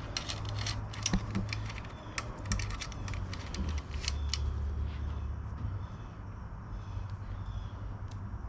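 Quick, irregular small metallic clicks and taps of a screw being worked out with a hand tool, thick for the first half and sparser after, over a low steady hum.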